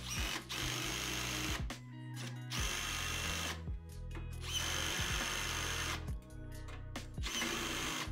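Greenworks cordless drill/driver driving bolts through swivel-caster plates into a steel base, in several separate runs about a second long, each with a high motor whine. Background music plays underneath.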